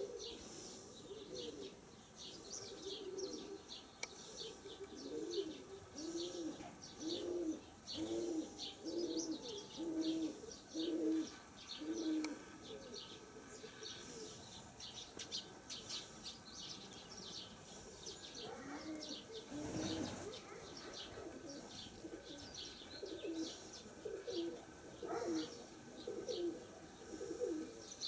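Nikolaev pigeons cooing, a run of low coos about one a second, fading and then starting again near the end, with small birds chirping steadily over them.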